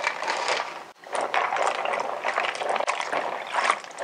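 Water splashing and sloshing in a mixing bowl as dried bael fruit slices are tipped in and rubbed by hand to wash off dust, with a brief lull about a second in.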